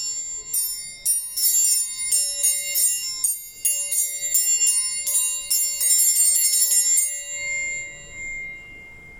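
Triangle struck over and over, about three strikes a second, with quicker strikes near the end, leaving a high metallic ring that fades out.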